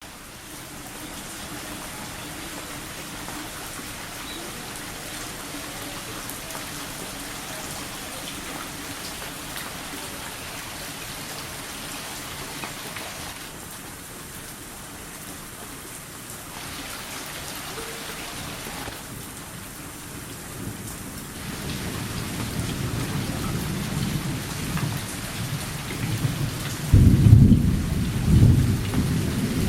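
Rain falling steadily in a continuous hiss. From about two-thirds of the way through, a low rumble of thunder builds, loudest near the end.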